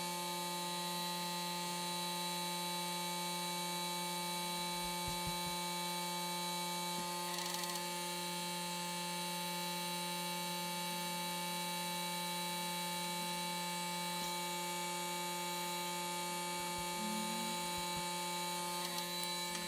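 Hot air rework gun blowing steadily as it reflows solder on a USB-C connector, a constant motor hum and whine with several fixed tones.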